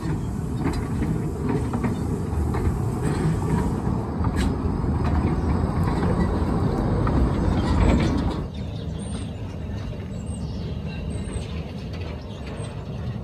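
Narrow gauge train moving slowly along the track, a steady rumble full of clanking and rattling from wheels and couplings. It grows louder up to about eight seconds in, then drops off abruptly to a quieter rumble.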